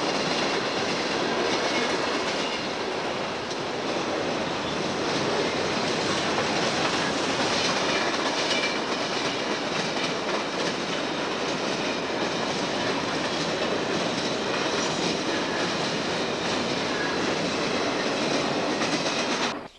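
Conrail freight train's cars rolling past at speed, with a steady rumble and the clack of wheels on the rail joints. The sound cuts off suddenly near the end.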